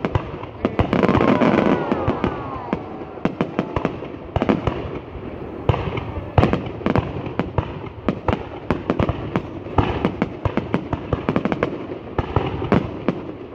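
Fireworks going off: a rapid run of sharp bangs and crackles, densest about a second in, where a few short falling whistles sound, then many separate cracks in quick succession.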